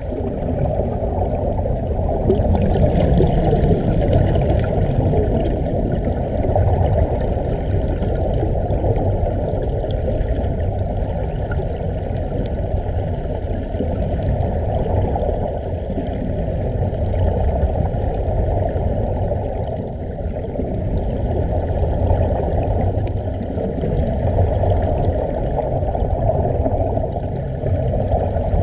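Steady, muffled underwater rushing and bubbling, with almost no treble, as heard by a camera in a waterproof housing: air bubbles streaming up from a surface-supplied diving helmet.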